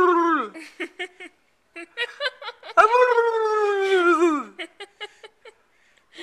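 A man making drawn-out, howl-like funny noises with his voice: one long call fades out about half a second in, and another rises and then slides down in pitch from about three seconds in, wavering at its end. Short choppy vocal bits fall between the calls.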